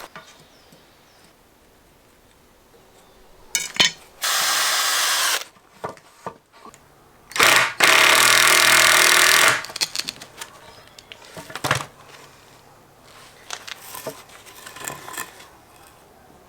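Power drill driving big screws in two steady runs, the first about a second long starting about four seconds in, the second about two seconds long near the middle, with a few sharp knocks around them.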